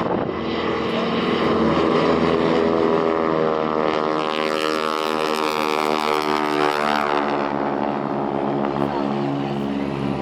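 Piston-engined propeller aircraft flying past, its engine drone growing louder to a peak about five seconds in and then dropping in pitch as it moves away.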